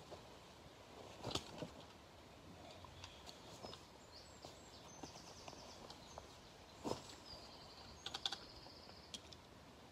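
Quiet outdoor background with a few small sharp clicks and knocks. A faint, high, rapid trill comes twice, past the middle.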